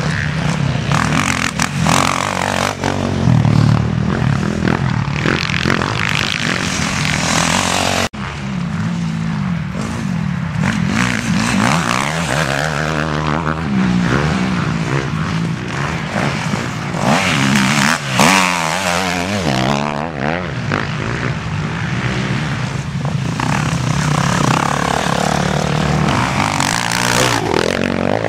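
Off-road racing motorcycles (enduro/motocross dirt bikes) running past on the course, their engines revving up and down, with a brief break in the sound about eight seconds in.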